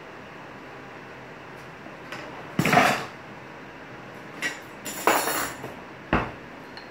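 Kitchenware being handled on a counter: a few separate clinks and clatters, loudest about two and a half seconds in, ending in a sharp knock.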